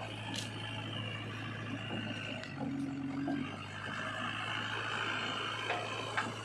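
JCB 3DX backhoe loader's diesel engine running steadily as the machine drives slowly and turns on gravel, with a steady higher whine over the low engine note. A couple of sharp clicks come near the end.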